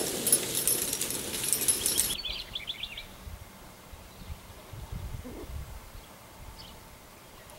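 An ox-drawn log dragging over frosty leaf litter, a scraping crunch with metal clinks, cutting off suddenly about two seconds in. Then comes a quick run of high bird chirps, under a second long.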